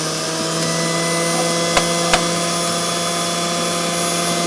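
Electric juicer motor running steadily as it presses burdock leaves into juice, a loud even hum. Two short knocks come close together about two seconds in.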